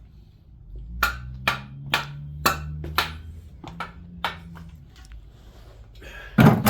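Background music: a woody percussion beat, about two hits a second, over low bass notes, with a louder hit near the end.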